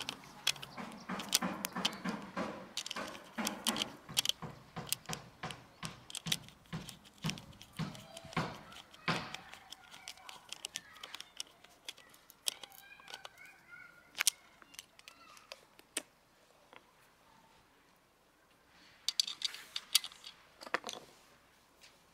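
Ratchet wrench clicking in quick runs as the water pump housing bolts on an outboard lower unit are tightened. The clicks thin out after about nine seconds, stop briefly, then come again near the end.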